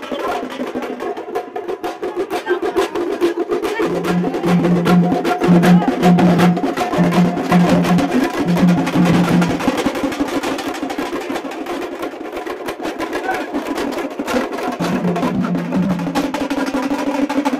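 Music driven by fast, dense drumming, with short repeated low notes in two stretches, about four seconds in and again near the end.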